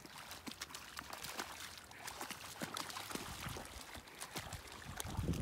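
Samoyeds wading through shallow water over rocks, with light splashing and trickling. Wind starts buffeting the microphone near the end.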